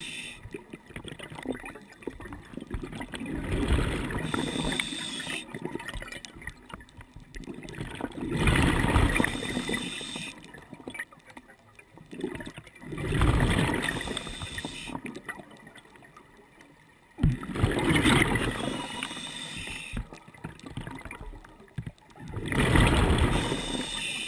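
Underwater water noise on a camera housing as a spearfisher swims over a reef: a gurgling rush that swells about every four to five seconds, five times, then falls back to a low hiss.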